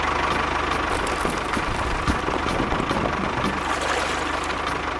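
Engine idling steadily with a fast, even chugging beat.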